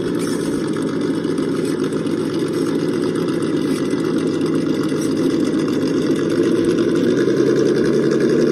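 Engine of a Toyota Land Cruiser FJ40-style truck humming steadily at low revs as it crawls along a log, growing a little louder near the end.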